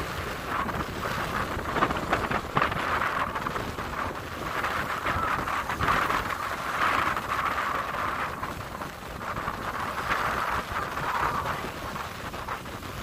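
Small waves washing and lapping at the shoreline of a lake, swelling and fading every second or two, with wind buffeting the microphone.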